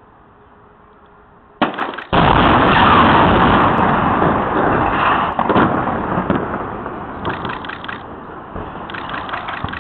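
Demolition charges going off on a port gantry crane: a sharp blast, then a second, bigger one about half a second later, followed by several seconds of loud rumbling that slowly dies away. Further rough bursts of noise come near the end as the crane starts to topple.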